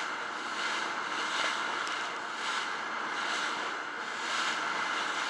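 Small dive boat under way at sea: a steady rush of wind and water against the hull, swelling in a hiss about once a second as it rides over the chop.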